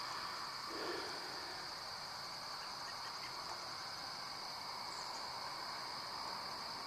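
Steady evening insect chorus, a continuous high-pitched drone, over a faint even hum of distant traffic.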